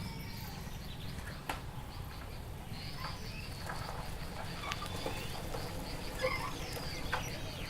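Rural Indian village ambience: birds chirping and calling over a steady low background rumble, with a few scattered clicks.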